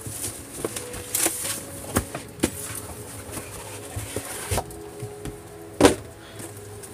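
Cardboard kit boxes being handled and slid out of one another: scraping and rustling with several light knocks, the loudest near the end.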